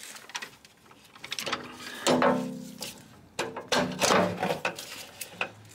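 Socket ratchet on a universal joint and long extension clicking in short runs as it is worked on a tight, hard-to-reach transmission bolt, with metallic knocks and a ringing clank a couple of seconds in.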